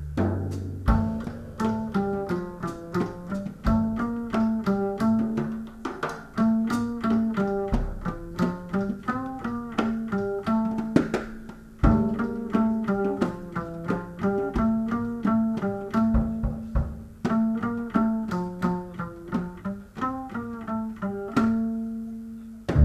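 Instrumental background music: a quick, continuous run of plucked string notes over a low bass line.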